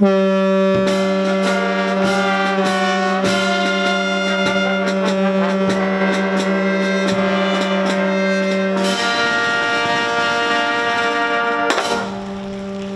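Navy brass band playing a slow piece, a low note held under the melody, with drum strokes; the music drops to a quieter level near the end.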